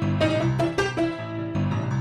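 Background music played on a piano-like keyboard, notes struck in a quick, even rhythm.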